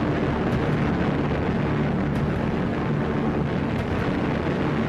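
Piston-engined propeller aircraft droning steadily in flight: an even, low engine hum under rushing noise.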